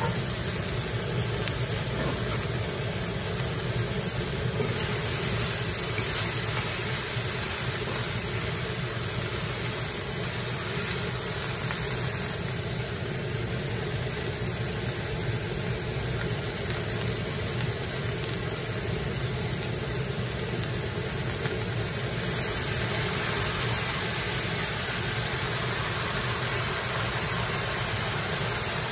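Pork, okra and mushrooms sizzling steadily as they stir-fry in a wok, over a steady low hum.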